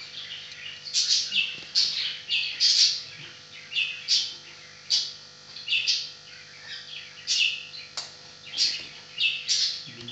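A bird giving short, high, hissy chirping calls over and over, about one or two a second at an uneven pace, each dropping in pitch.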